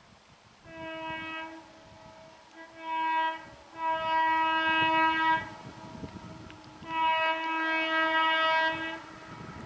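WAP7 electric locomotive's horn sounded in four blasts: a short one about a second in, another short one near three seconds, then two long, loud blasts.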